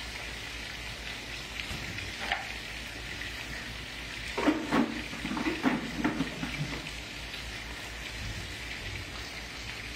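Food frying in skillets on a gas stove, potatoes and hamburger steak giving a steady sizzle, with a few short clatters about four to six seconds in.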